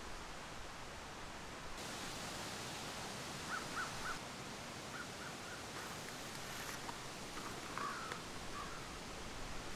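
Woodland ambience: a steady hiss of background noise with short bird chirps, two quick runs of three in the middle and a few longer calls near the end.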